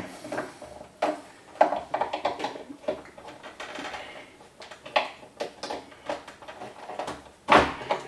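Scattered clicks, knocks and rubbing of plastic parts being handled and pressed into the plastic housing of a coffee maker, with a louder knock near the end.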